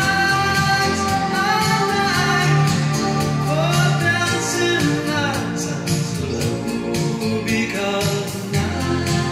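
A song with a singing voice over instruments and a steady beat, played back from a vinyl record on a Michell turntable.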